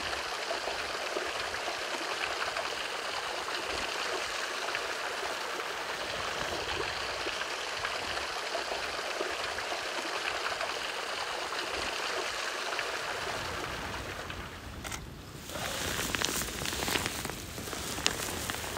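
Water trickling and splashing down a rock face onto stone ledges, a steady, even patter. About fourteen seconds in it gives way to gusty wind rumbling on the microphone.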